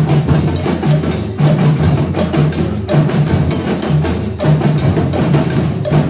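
Batucada percussion ensemble playing, with deep bass drums pulsing about twice a second under a dense stream of fast, sharp drum strokes.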